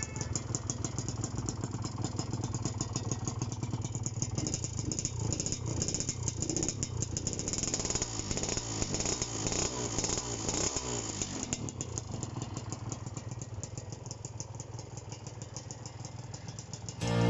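Kawasaki AR125R's single-cylinder two-stroke engine running, a fast, even rattle of exhaust pulses.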